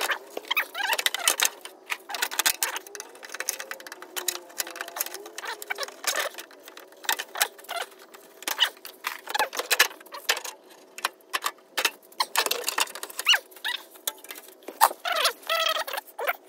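Plastic windshield cowl panel being worked free by hand: irregular clicking, crackling and squeaking as the plastic flexes and rubs and its clips let go.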